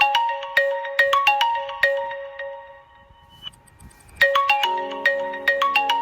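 Mobile phone ringtone: a bright melody of quick, struck notes plays through once and pauses briefly. It then starts again about four seconds in, this time with lower notes added underneath.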